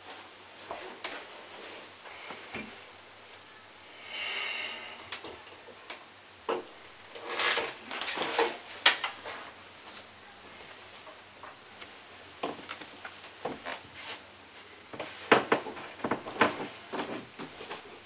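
Socked feet stepping and sliding on a wooden floor: scattered light knocks and rubbing scuffs. There is a short squeaky rub about four seconds in, and louder clusters of scuffs about halfway through and again near the end.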